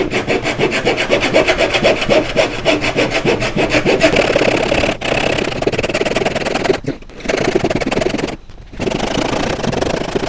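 Japanese replaceable-blade pull saw ripping a wooden board along the grain, in quick even back-and-forth strokes of about four or five a second. The strokes break off briefly twice in the second half. The blade is not a rip-cut blade, which makes this rip cut slow going.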